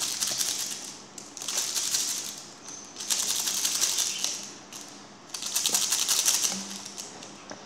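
Sucking a drink up through a straw: four long draws, each a rapid crackly slurp as air and liquid rattle up the straw, with short pauses between.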